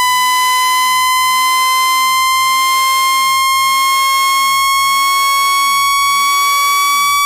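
Synthesized water-eject tone for clearing water from a phone speaker: a steady, buzzy electronic tone near 1 kHz with strong overtones, slowly rising in pitch.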